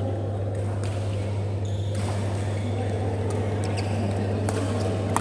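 Badminton rally: rackets hit the shuttlecock with several sharp hits spaced through the rally, over a steady low hum.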